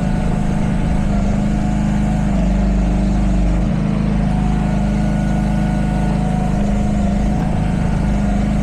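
Chinese-made mini excavator's engine running steadily while the machine works, its pitch shifting slightly a couple of times as the load changes.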